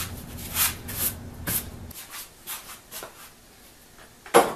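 Scrapes, shuffles and knocks of a hand-crank grinder being stowed under a wooden workbench, in an irregular string of short clunks.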